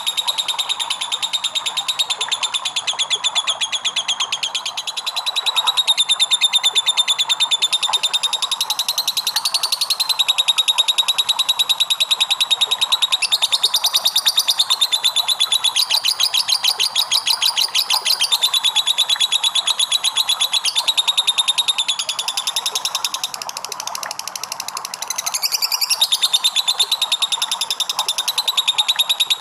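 Lovebird giving a long ngekek: a rapid, high-pitched chattering trill kept up almost without pause, easing briefly twice.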